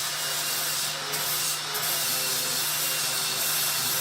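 Angle grinder running steadily under load, its disc grinding against the workpiece with a continuous hiss over a steady motor hum.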